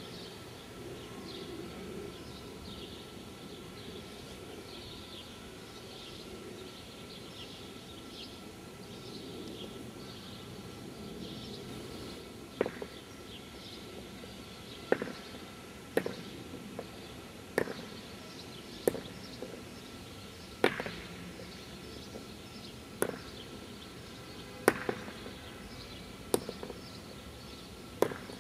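High, short chirps over a steady low background, then from about halfway a series of about ten sharp knocks or clicks, roughly one every one to two seconds, which are the loudest sounds.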